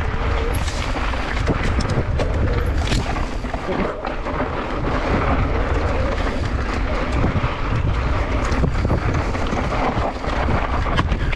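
Mountain bike descending a dry, dusty dirt trail at speed: wind buffeting the microphone over the tyres running on loose dirt, with scattered clicks and knocks from the bike over bumps.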